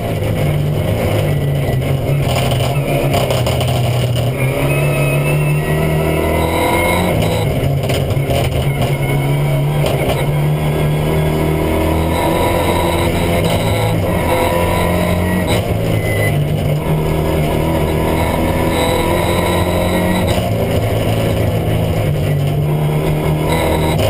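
Renault Mégane N4 rally car's turbocharged four-cylinder engine at full race pace, heard from inside the cockpit, the pitch climbing and stepping through gear changes. Its 'bang bang' anti-lag system is active, keeping the turbo spooled even off the throttle, with sharp cracks from the exhaust on deceleration.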